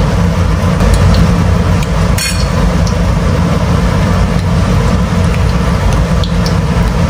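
Battered cempedak deep-frying in a wok of hot oil: a loud, steady sizzle, with a few light clinks of a metal spoon against the glass batter bowl.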